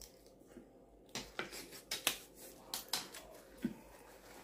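Crunchy chewing of a mouthful of salad: a run of sharp, crisp crunches that starts about a second in and stops shortly before the end.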